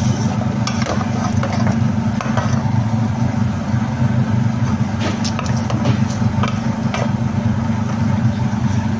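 A wooden spatula stirring chicken pieces in a sauce-coated pan, with scattered knocks and scrapes against the pan, over a steady low rumble.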